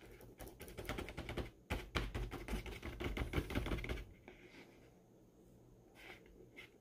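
Rapid, irregular small clicks and crackles from hands working a subwoofer's cone and spider around on the basket, for about four seconds, then stopping.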